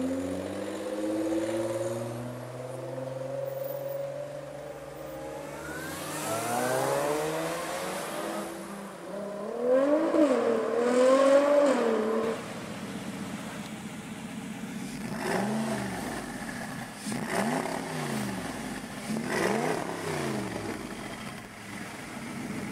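Nissan GT-R's twin-turbo V6 pulling away, its pitch climbing, then revving loudly with a wavering pitch. After that, a supercar engine gives three quick revs, each rising and falling.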